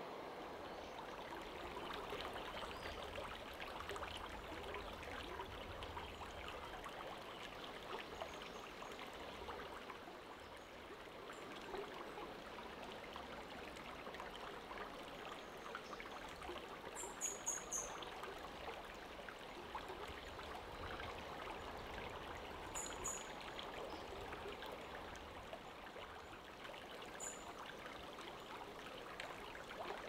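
A stream of water flowing steadily, with a few short high chirps in small clusters, the loudest about halfway through.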